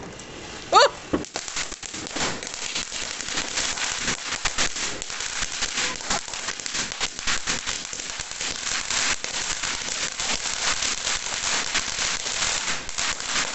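Cone fountain firework burning with a dense, steady crackling of many small pops. A short rising squeal comes about a second in.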